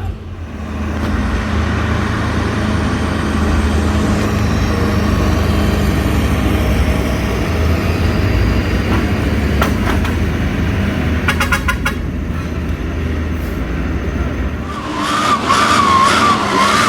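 A truck engine running steadily with a low hum, with short rattles of clicks about ten seconds in. Near the end the engine sound drops away and a wavering high tone comes in.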